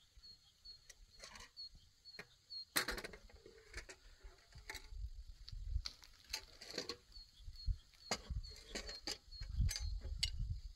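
Irregular crunching and clicking of footsteps on dry ground, with a small bird repeating a short high chirp about twice a second and wind rumbling on the microphone now and then.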